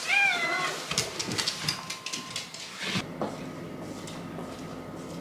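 A pet animal gives a short, wavering whine-like call, followed by a quick run of light clicks and taps.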